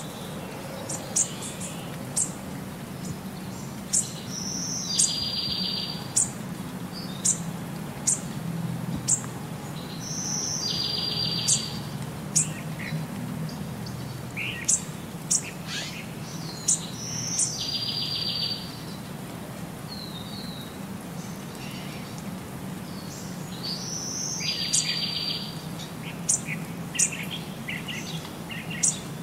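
Small birds chirping and calling, with short high chirps and a buzzy trilled phrase that recurs about every six seconds, over a steady low hum.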